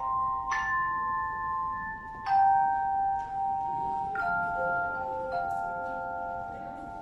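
A tone chime ensemble playing slow, sustained chords: the tuned handheld chimes are struck together every two seconds or so and left to ring into one another.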